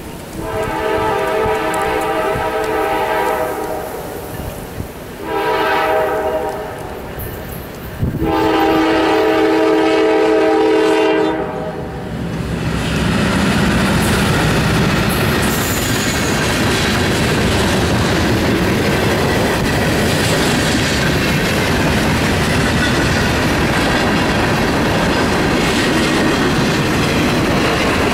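Norfolk Southern diesel locomotive's multi-chime air horn sounding three long blasts, the last the loudest. The freight train then rolls past with a steady rumble and the clickety-clack of wheels over the rail joints.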